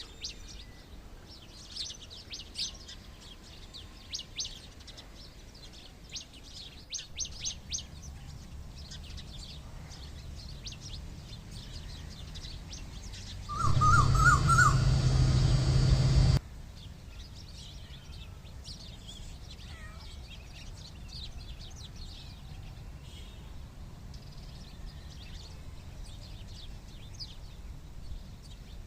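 Small birds chirping and twittering. About halfway through, a much louder noisy sound with a low hum and a wavering tone lasts about three seconds, then cuts off suddenly.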